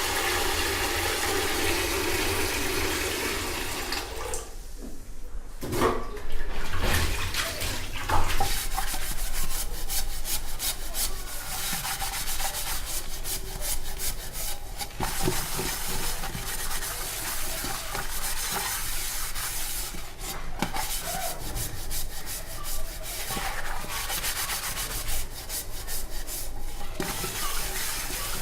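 Steel vessels being washed in a kitchen sink: a tap runs steadily for the first few seconds, then a few metal knocks and continuous scrubbing of the steel dishes with frequent small clinks.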